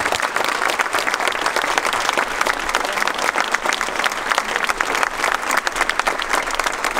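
Audience applauding: dense, even clapping from a roomful of people, holding steady throughout.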